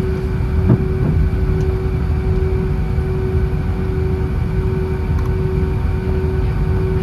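Airbus A320 cabin noise heard from a window seat: the steady low rumble of the jet engines and airflow with a constant hum, and a single brief thump under a second in.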